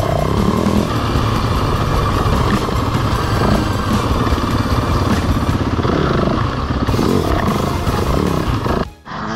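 Yamaha dirt bike engine running while ridden, its revs rising and falling; the sound cuts off abruptly about nine seconds in.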